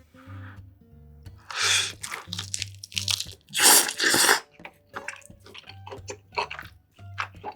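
Close-miked eating sounds: two loud crunchy bites, then a run of quick, sharp wet chewing clicks, over soft background music.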